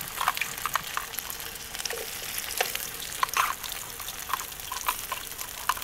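Pre-cooked chicken wings frying in hot oil in a frying pan: a steady sizzle with scattered crackles and pops.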